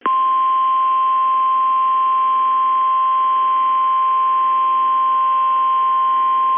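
NOAA Weather Radio warning alarm tone: one steady, unbroken high-pitched tone over faint radio hiss, the signal that an urgent warning message follows, here a severe thunderstorm warning.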